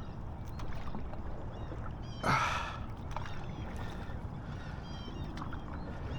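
Small knocks and clicks from a kayak and fishing gear over a steady low rumble on the water, with one short, loud rushing burst about two seconds in.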